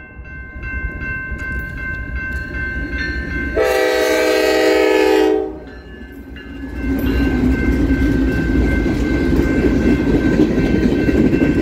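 Grade-crossing bell ringing steadily as a Norfolk Southern freight train approaches. About three and a half seconds in, the lead locomotive sounds one long horn blast of nearly two seconds, the loudest sound. From about seven seconds the locomotive and tank cars rumble across the crossing.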